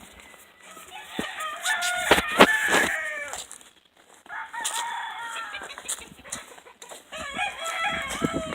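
Roosters crowing: three long crows in a row, each about a second and a half to two seconds long.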